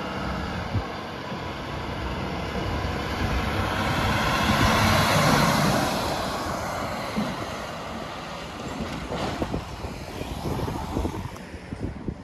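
A fire engine's diesel engine and tyres as it pulls away and drives close past, growing louder to a peak about five seconds in, then fading as it moves off.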